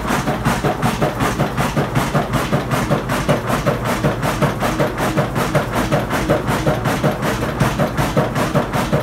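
1938 Ruston Hornsby 6 XHR single-cylinder four-stroke crude-oil diesel stationary engine running, with a rapid, even beat.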